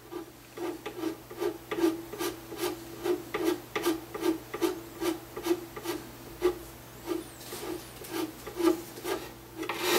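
Nut file scraping back and forth in a guitar nut slot in quick even strokes, about two to three a second. The file is recutting the E-string slot, which had been cut too low and was filled with superglue and nut sanding dust.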